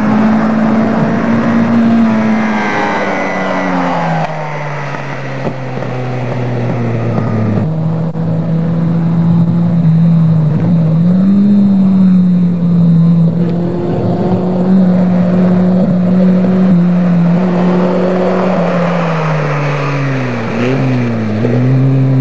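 Off-road race buggy engine running under power, its pitch holding steady for long stretches. The pitch falls a few seconds in, and near the end it dips and climbs back twice as the revs drop and pick up again.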